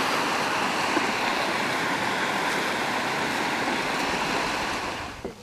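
Steady rushing of river water, an even roar of noise that cuts off suddenly near the end.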